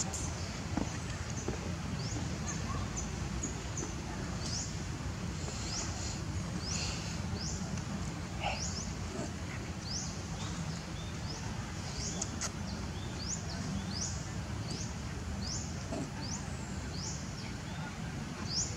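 Outdoor ambience: a small bird repeats a short, high chirp about once a second over a steady low rumble.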